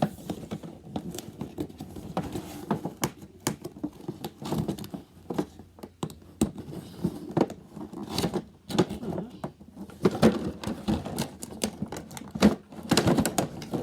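Hands opening a cardboard toy box and pulling out its contents: irregular clicks, taps and crinkling of cardboard and packaging.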